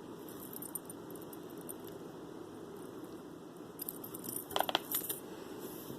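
Metal necklace chain and lobster claw clasp clinking lightly as they are handled, with a short cluster of sharper clinks about four and a half seconds in, over faint steady room noise.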